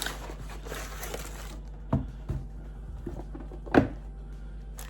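Hands handling the packaging of a boxed toilet fill valve: a second and a half of rustling, then a few knocks, the loudest a little before the end, over a steady low hum.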